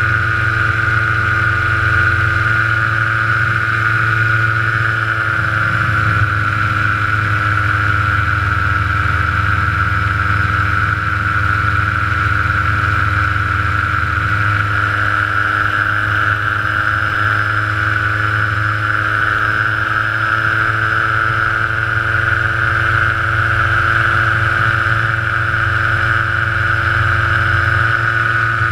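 Paramotor engine and propeller running steadily in flight. Its pitch eases down slightly about five seconds in and comes back up near twenty seconds.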